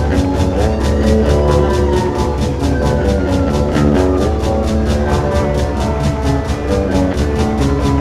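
A song playing: a steady, fast beat under held chords.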